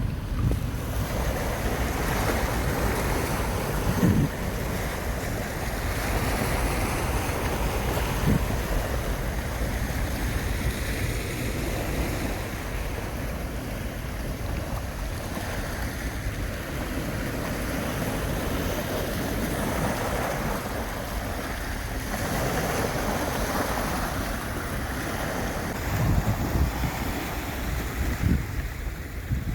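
Black Sea waves washing in on the shore, each one swelling and fading every few seconds, with wind buffeting the microphone as a steady low rumble and a few thumps.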